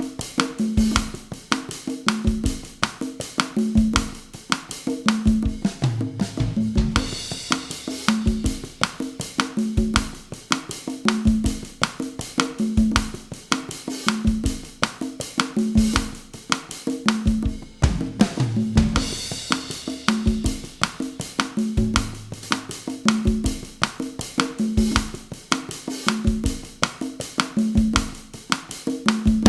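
Bossa nova groove played on drum kit and congas at 160 bpm as a repeating loop, the conga notes and kit strokes cycling evenly, with a brighter cymbal accent about every twelve seconds.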